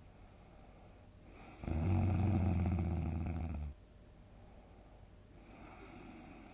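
A sleeping person snoring: one loud, low, fluttering snore lasting about two seconds, beginning about a second and a half in. A much fainter breath follows near the end.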